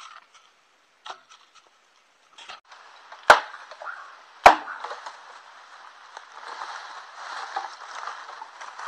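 Two sharp machete chops into a green bamboo pole, a little over a second apart, with a few lighter taps before them. Afterwards comes a dry rustling in the bamboo leaf litter.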